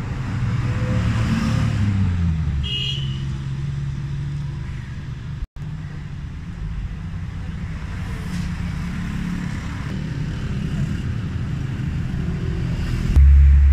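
Motor vehicle engine running, its pitch rising and falling early on, then holding steady. There is a brief dropout about five and a half seconds in, and a louder low engine rumble comes in near the end.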